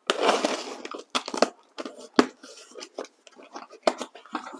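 Packing tape being ripped off a cardboard shipping box, a noisy tear of nearly a second, followed by scattered clicks, knocks and rustles of the cardboard flaps being handled and opened.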